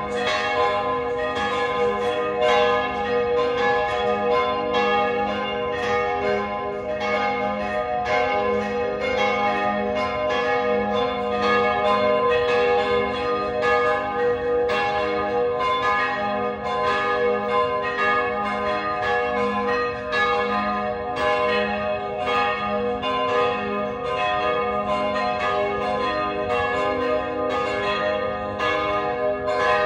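Church bells ringing a continuous peal: repeated quick strokes over the lingering hum of the deeper bells, without a break.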